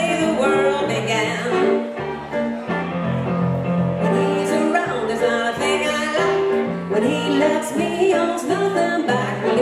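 Live blues played on a hollow-body electric guitar and a stage keyboard, with singing.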